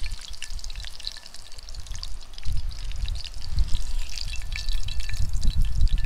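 Hot oil sizzling and crackling in a cast-iron skillet around breaded trout fillets at the end of frying. A low rumble underneath grows louder from about halfway through and becomes the loudest sound.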